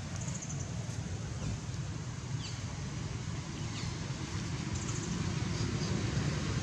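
Steady low outdoor rumble with a few faint, short descending high chirps and two brief high trills.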